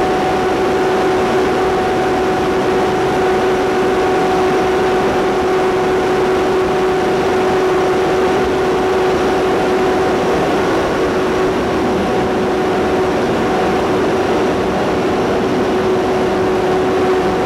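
Large motor-driven centrifugal pump sets running in a pump house: a loud, steady machine drone with a constant humming tone that does not change.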